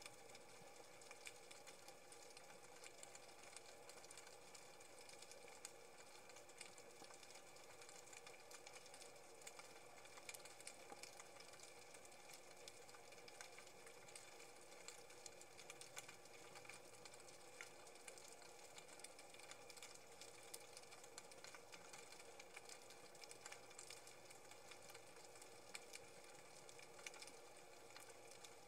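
Near silence: a faint steady hiss with a few steady tones and scattered faint ticks.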